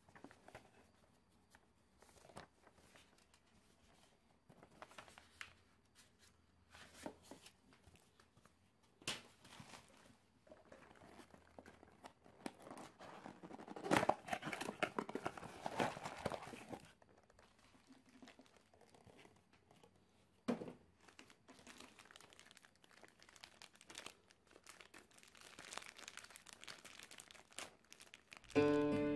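Unboxing handling noise: clear plastic packaging bags crinkling and a small cardboard box being opened, with scattered light taps and clicks. The handling is loudest and densest about halfway through, when the box is opened.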